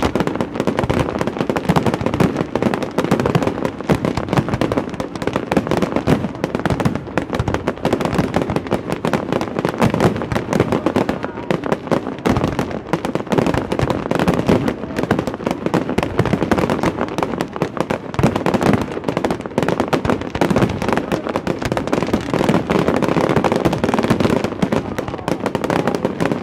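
Fireworks display: aerial shells bursting in a dense, continuous barrage of bangs and crackling.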